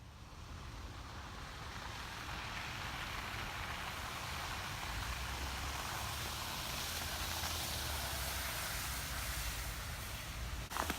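A steady rushing noise with a low rumble underneath, swelling slowly over the first few seconds and holding.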